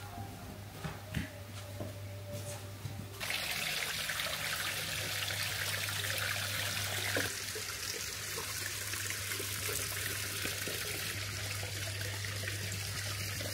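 Water running steadily, a hiss that starts abruptly about three seconds in after a few light clicks, over a low steady hum.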